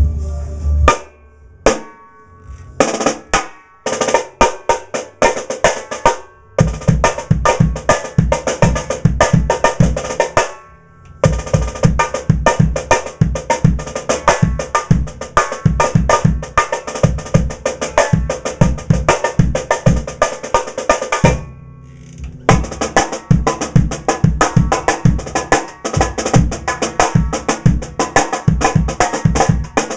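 Drum kit played with a Pearl Firecracker steel-shell snare tuned very high, its snare hits set against bass drum strokes. A few scattered hits come first, then steady grooves, broken by two short pauses about ten and twenty-one seconds in.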